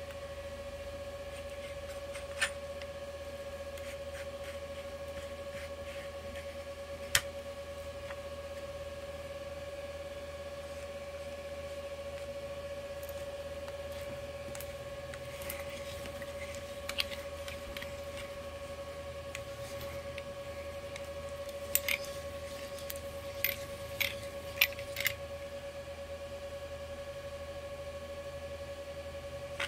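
Sharp clicks and snips of hand cutters gripping and biting into the steel can of an 18650 lithium-ion cell as it is pried open, a handful of them spread out and more in the second half, over a steady high electrical hum.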